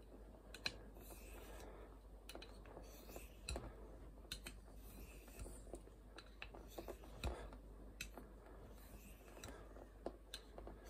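Fallkniven F1's VG10 blade drawn in short strokes along a hand-held 1000-grit sharpening stone, wetted with water and a little polishing paste, to polish the edge. It is faint, with soft scraping and scattered light clicks.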